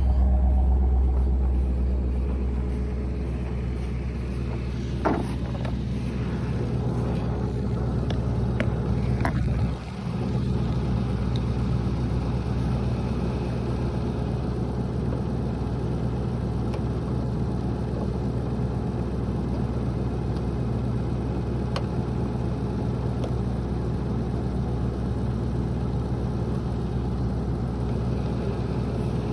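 A vehicle engine idling steadily, with a few sharp clicks about five and ten seconds in.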